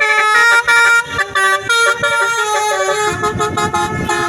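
Indonesian tour bus's telolet horn, a multi-tone horn playing a quick run of changing notes as a tune. A low rumble joins under it about three seconds in.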